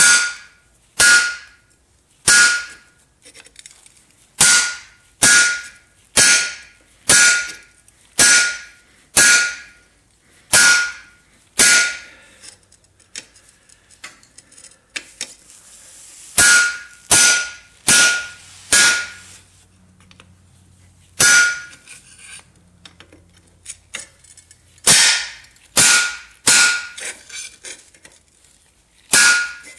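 Hand hammer striking a hot chisel that is splitting a glowing 3/8-inch round steel rod on a cut plate. Sharp metallic blows come about one a second, each with a brief ring, in runs broken by short pauses.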